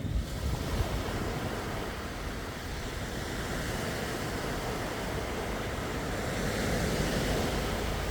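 Sea waves washing in, a steady rushing that swells a little near the end, with some wind on the microphone.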